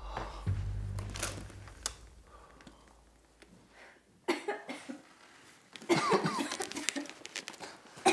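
A low drone fades away over the first few seconds. Then come scraping and knocking as a wooden box is slid out and lifted, with short rough rasping sounds.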